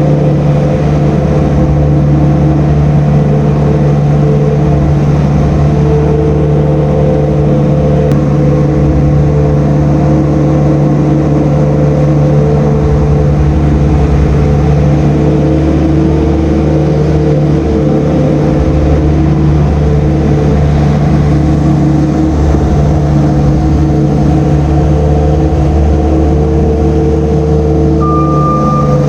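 Farm machine engine running steadily while working a plow blade to scrape out feed bunks, with a reversing alarm beeping just before the end.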